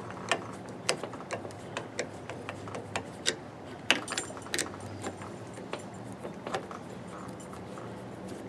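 Hand Phillips screwdriver backing small screws out of a metal door-lock faceplate: a string of irregular small metal clicks and ticks, thinning out near the end.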